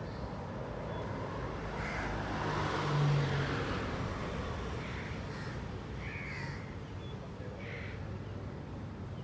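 Outdoor street ambience: a passing vehicle swells and fades about three seconds in, while a bird gives several short calls.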